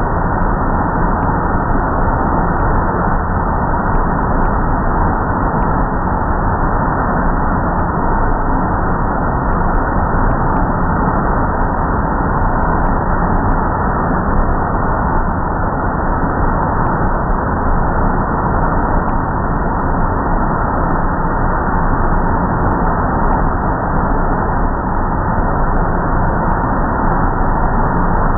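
Automatic car wash blower dryers running with a loud, steady rushing noise and a faint whine.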